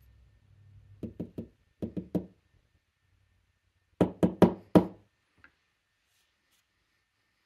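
Metal lock cylinder housing knocked against the desk in quick groups of three, three and four, shaking loose its pins and springs.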